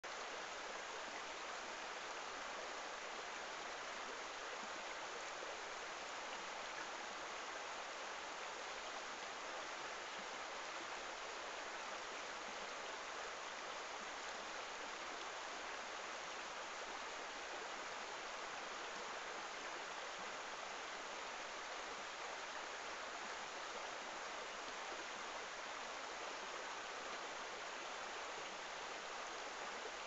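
Shallow, clear river running over a stony riffle: a steady, even rush of flowing water.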